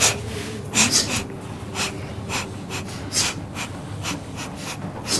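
A person's short, sharp breaths or puffs of air, many in quick irregular succession, the loudest at the start and about a second in, over a faint steady hum.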